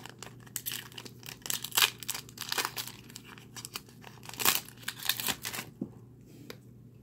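Foil booster pack wrapper of Pokémon trading cards crinkling in irregular bursts as the pack is opened and the cards are slid out, stopping about a second before the end.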